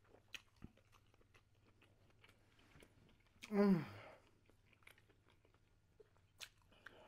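Close-up mouth sounds of someone chewing a sausage in a bun with sauerkraut and relish: soft wet clicks and crunches. About halfway through comes a short hum that falls in pitch.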